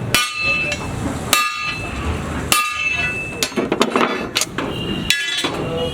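Hammer blows on steel truck leaf spring parts, each hit ringing with a clear metallic tone. Single blows come about a second apart, then a quick run of lighter hits a little past halfway, then another blow.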